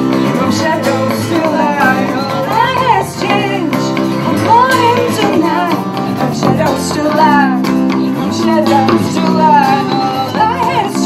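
Live band music: female voices singing a wavering melody over strummed acoustic guitar and electric guitar.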